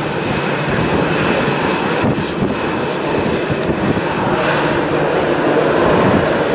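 Jet engines of a Boeing 737-700 (CFM56 turbofans) running at low thrust as the airliner taxis, a steady loud rumble with a faint whine above it.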